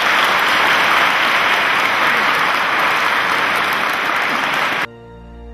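Loud applause from a large audience that cuts off abruptly near the end, where soft music begins.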